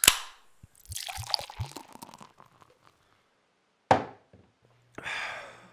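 Beer poured into a glass, a fizzing, splashing hiss with a few low knocks, then a single sharp knock of the glass on the table about four seconds in and a short hiss near the end.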